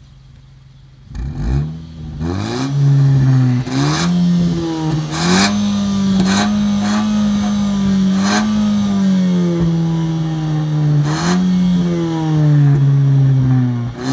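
Nissan Juke Nismo's 1.6-litre turbocharged four-cylinder, heard at the exhaust tip, revved while stationary. It is quiet for about a second, then comes a series of throttle blips whose pitch rises and falls, with the revs held up for a few seconds at a time. Several blips carry a short, sharp rush of noise.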